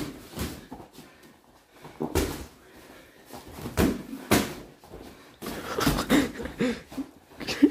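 Boxing gloves landing on bare torsos in body punches: a string of separate dull hits a second or two apart, some in quick pairs, with footsteps on the mats.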